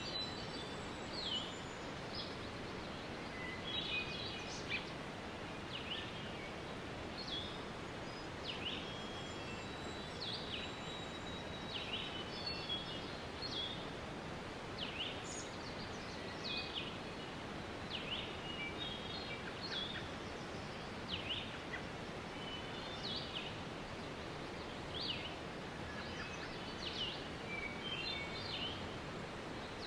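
Waterfall rushing steadily, with birds chirping over it: many short, sharp falling notes, one every second or so, sometimes in quick clusters.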